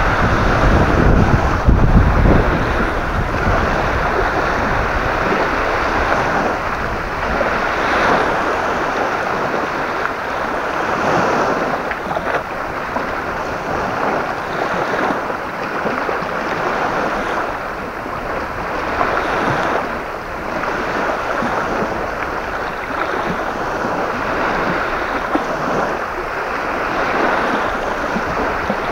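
Strong gusty wind blowing across the microphone, a steady rushing hiss with low buffeting that is heaviest in the first two seconds.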